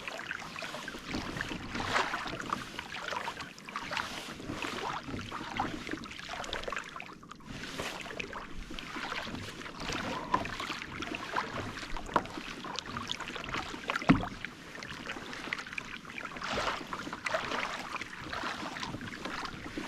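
Water splashing and lapping against a kayak hull as it moves over the open sea, with one sharper knock about two-thirds of the way through.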